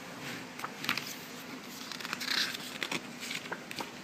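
Pages of an album photobook being turned and handled: soft paper swishes and rustling with small taps and clicks.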